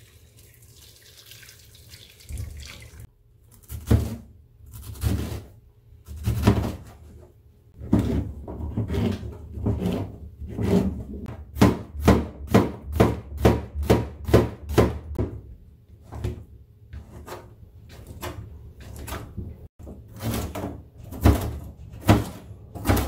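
Boiled water from an electric kettle pouring over fish cakes in a metal strainer, then a kitchen knife chopping onion and green bell pepper on a cutting board. The chops come singly at first, with a quick run of about three a second in the middle.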